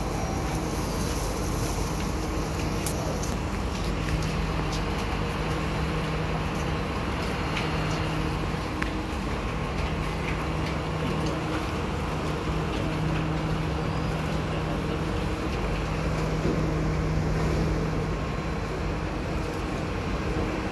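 Steady hum and rush of an underground MRT platform, with an SMRT C151B train standing at the platform, doors open. A low hum comes and goes, with scattered light clicks and footsteps.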